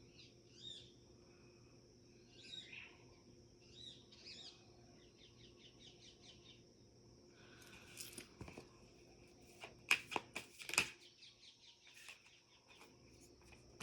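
Tarot cards being shuffled and handled: a run of quick, faint papery flicks with two sharper snaps about ten and eleven seconds in. A few faint bird chirps sound in the first few seconds.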